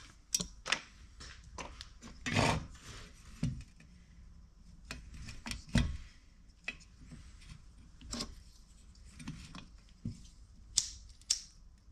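Scattered clicks, taps and rubbing from hands and tools working on a small-engine recoil pull-starter while its new cord is fitted, with a short scraping patch about two and a half seconds in and two sharp clicks near the end.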